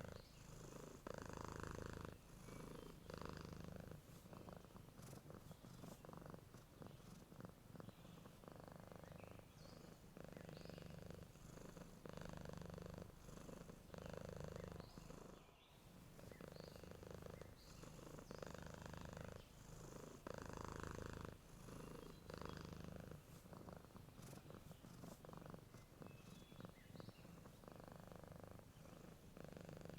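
Domestic cat purring, faint and steady, swelling and easing with each breath about every two seconds.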